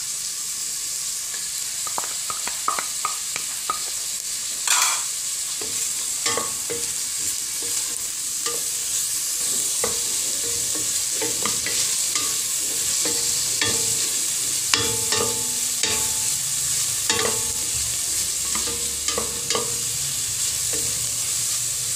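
Chopped onion, garlic and ginger frying in hot oil in a stainless steel pot, a steady sizzle, with a wooden spatula scraping and tapping against the pot as it stirs.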